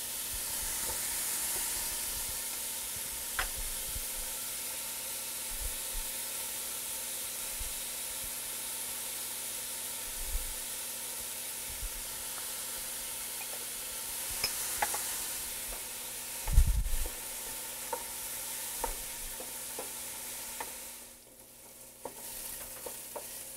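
Chopped carrots, onions and celery sizzling steadily in olive oil in an aluminium pot, with scattered light knocks as a wooden spoon stirs them. A heavier thump comes about two-thirds of the way through, and the sizzle drops away briefly near the end.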